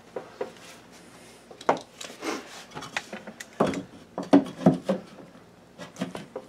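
A wooden backing strip being handled and pushed into a square hole cut in drywall, rubbing and knocking against the cut sheetrock edges in a series of irregular scrapes and knocks.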